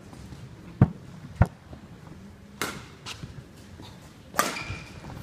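Badminton rackets striking the shuttlecock in a rally: a sharp crack about two and a half seconds in, a lighter hit just after, and a louder crack near the end. Before the rally, two heavy dull thuds about a second in are the loudest sounds.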